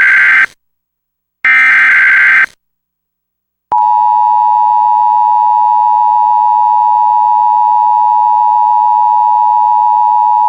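Emergency Alert System SAME header: two bursts of digital data tones, one ending about half a second in and another about a second and a half to two and a half seconds in. After a pause of about a second the EAS attention signal starts, a loud steady tone near 1 kHz that runs without a break.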